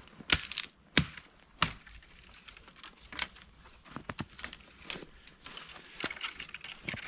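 A homemade knife chopping branches: three sharp chops in the first two seconds, then lighter cracking and snapping of wood.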